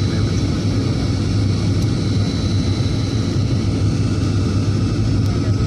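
Steady low drone of a motorboat engine running at constant speed, with a rush of wind and water over it.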